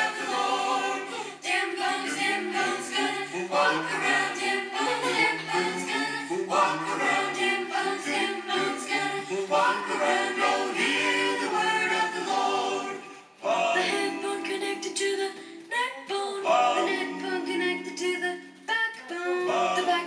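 Recorded song with singing over a steady beat, dropping out for a moment a little past the middle.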